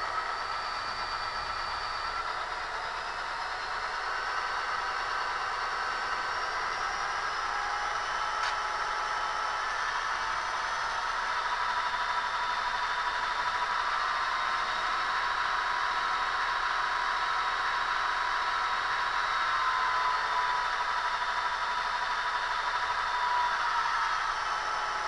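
Soundtraxx Tsunami sound decoder playing a simulated EMD 645 diesel engine through the HO scale model's small speaker, thin and without bass. The engine note rises a couple of times as the throttle is notched up.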